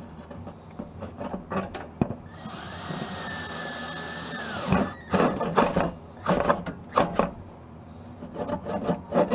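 Metal clinks and knocks of tools and snowblower parts being handled during reassembly, with a steady whir of a small tool motor for a couple of seconds in the middle.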